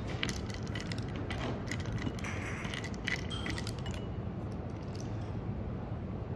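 Wooden chopsticks stirring clam miso soup in a lacquered cup: quick light clicks and clinks of chopsticks and clam shells against the cup, busy for the first few seconds and then sparser.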